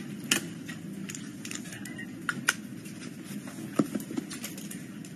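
Scattered small clicks and taps from handling makeup items and rummaging in a handbag, over a steady low background hum.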